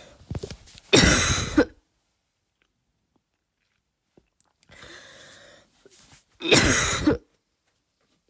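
Two deliberately forced barking coughs from a girl, about five and a half seconds apart. Each comes after a quieter noisy breath in. They are attempts at a barking cough rather than the real thing.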